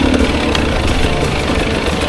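A 250cc enduro dirt bike engine running at low revs, near idle, off the throttle.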